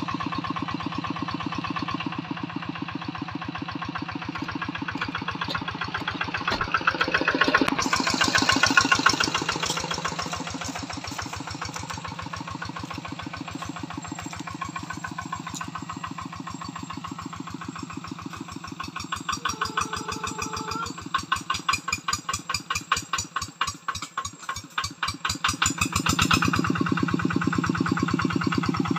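Single-cylinder diesel engine of a homemade walk-behind hand tractor chugging. It gets louder and rises in pitch from about 7 to 10 seconds in, surges up and down from about 19 to 26 seconds, then settles back to a steady run.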